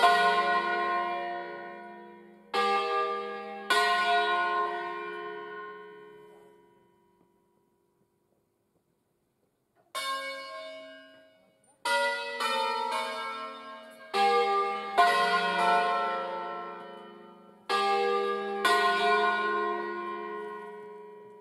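A ring of five church bells in a slightly sharp F3, cast by Angelo Ottolina of Bergamo in 1957, played as a solemn festive peal. Clusters of strokes from several bells ring out and die away over a few seconds. The ringing stops for about three seconds in the middle, then starts again in a quicker run of strokes.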